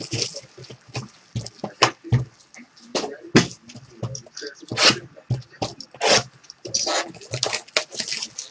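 Plastic shrink-wrap on a box of trading card packs crinkling and tearing in the hands, an irregular run of sharp crackles and rustles.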